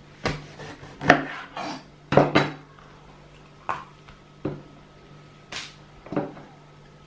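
Kitchen knife cutting a bell pepper on a wooden cutting board: about eight irregular sharp knocks of the blade against the board, some with a short scrape, over a steady low hum.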